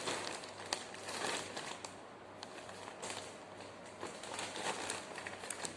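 Rustling and crinkling of packaging being handled, with scattered small clicks.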